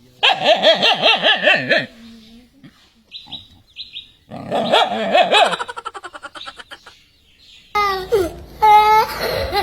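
Loud laughter in two bursts, the first just after the start and the second around four to five seconds in, trailing off in quick pulses. A few short high chirps fall between them, and near the end a voice rises and falls in pitch.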